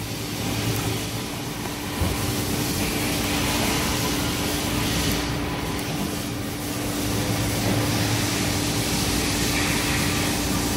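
Steady mechanical hum and noise, with one sharp click about two seconds in.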